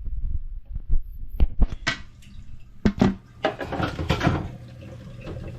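Irregular knocks and clatter over water running into a toilet tank that is refilling slowly. The tank keeps running because the fill valve is bad and no longer shuts the water off.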